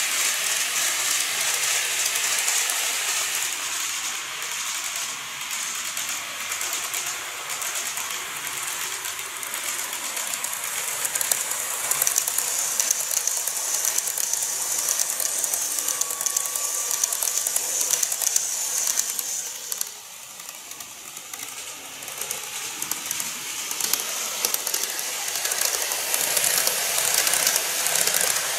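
N-gauge model trains running on the layout track: a steady high hiss from wheels and motors, with dense fine clicking. The level dips about two-thirds of the way through.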